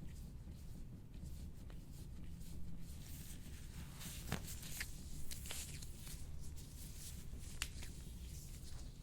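Faint scratchy rubbing of a soft-tissue scraping tool drawn over skin, with a few sharp clicks around the middle.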